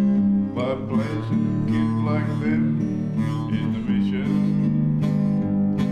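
Background music: a song on strummed acoustic guitar with held notes.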